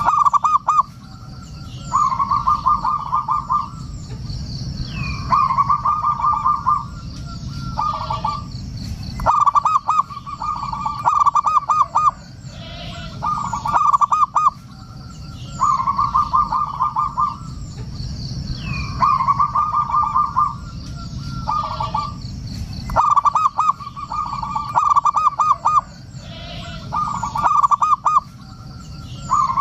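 Zebra dove (perkutut) cooing: phrases of rapid trilled coos, one about every two seconds, over a steady low background rumble with faint high chirping above.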